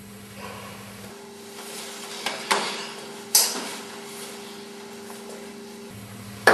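A few sharp bangs on a metal silo hatch, two close together and then a louder one about a second later, over a steady low hum.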